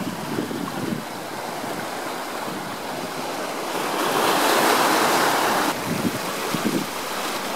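Wind rushing over the microphone outdoors, with a stronger gust about four seconds in that drops off sharply almost two seconds later, and a few low buffeting thumps.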